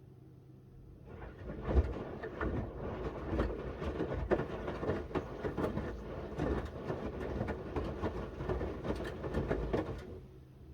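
Miele W1 washing machine drum turning a small load of shirts for about nine seconds, with irregular thuds and clatter of laundry tumbling in water. It starts about a second in and stops near the end, as the drum pauses between its reversing turns.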